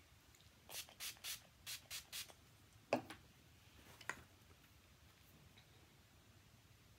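Setting spray bottle pumped six times in quick short hisses, then two light clicks about a second apart.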